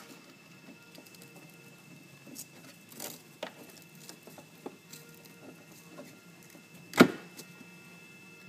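Light taps, scrapes and clicks of parts being handled and fitted back into a Jetsurf motorized surfboard during reassembly, with one sharp knock about seven seconds in.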